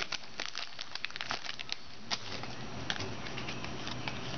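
Foil wrapper of a trading-card pack crinkling and crackling in the hands as the pack is opened and the cards pulled out, busiest in the first two seconds.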